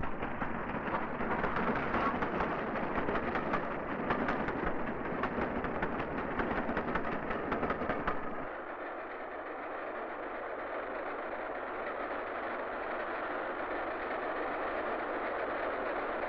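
Steam train running at speed: a dense rumble with rapid rattling clicks from the wheels on the track. About eight seconds in it changes to a smoother, quieter rushing noise with the deep rumble gone.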